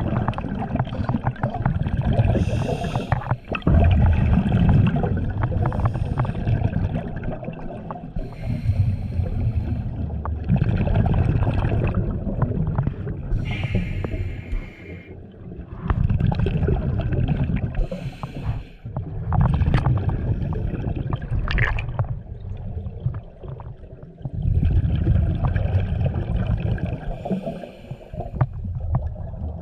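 Scuba breathing through a regulator, heard underwater: bubbling, rumbling exhalations alternate with hissing inhalations, one breath about every four to five seconds.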